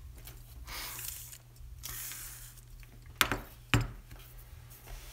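Small metal parts being handled: soft rustling, then a 3D-printer hotend and its metal mounting plate set down on a cutting mat with two light clinks about half a second apart.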